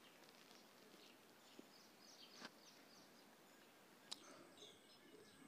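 Near silence: faint background with a few faint bird chirps, and one small click about four seconds in.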